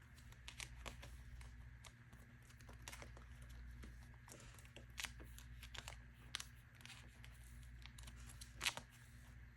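Plastic binder pocket pages and card sleeves rustling and crinkling as photocards are handled and slid into the pockets, a scatter of soft scrapes and small ticks over a low steady hum. The sharpest tick comes near the end.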